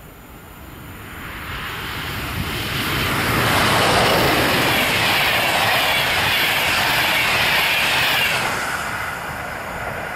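A passenger train hauled by a PKP Intercity EU44 (Siemens Taurus) electric locomotive passing at speed. The rolling noise of wheels on rails builds to a loud rush as the locomotive and coaches go by, holds while the coaches pass, then fades as the train moves away.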